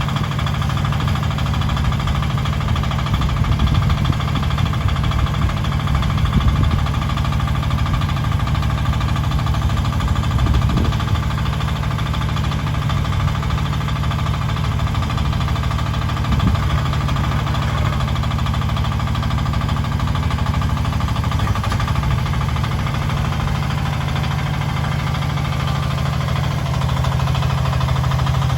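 Mini excavator engine running steadily with a low drone, a few short knocks over it, and its note growing steadier and a little louder near the end.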